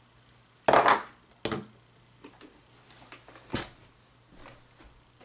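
A plastic cordless phone handset being handled: a few sharp clicks and knocks, the loudest about a second in, then two more and some small ticks.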